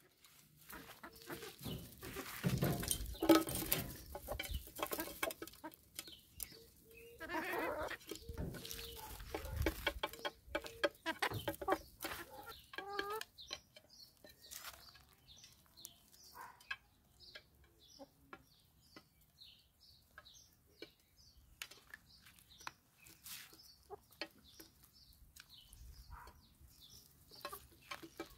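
Hens clucking and calling, louder in the first half. From about halfway, many quick sharp taps of beaks pecking at mango pieces on a plastic tray take over, with soft clucks among them.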